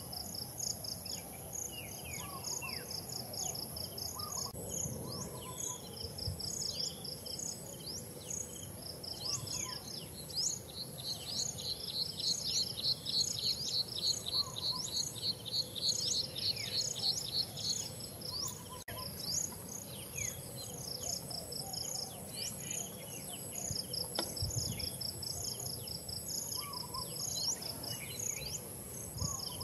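Outdoor insect chorus: a steady high-pitched whine under rows of rhythmic, pulsing chirps that swell into a louder fast trill for several seconds midway, with scattered short bird chirps.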